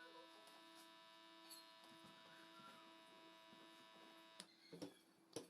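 Blackhead-remover pore vacuum's small motor running with a faint steady whine, cutting off suddenly about four and a half seconds in, followed by a couple of short clicks.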